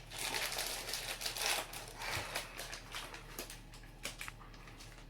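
Plastic packaging crinkling and rustling as it is handled, dying down to a few light clicks about three and a half seconds in.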